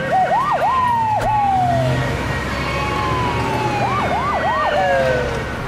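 Police car sirens sounding in a quick rising-and-falling whoop: sharp upward sweeps each followed by a longer downward glide, with a run of three quick whoops near the end.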